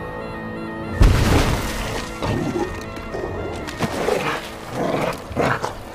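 Film score music, broken about a second in by a loud crash with a deep boom, followed by a run of sharp shattering, breaking impacts from the fight.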